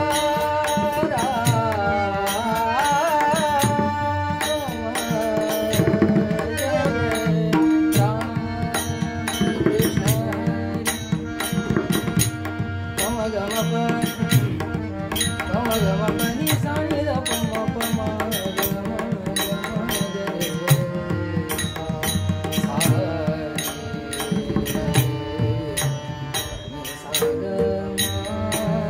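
Devotional bhajan music: pakhwaj (mridang) drumming in a steady rhythmic pattern under sustained held notes and a gliding classical-style vocal melody.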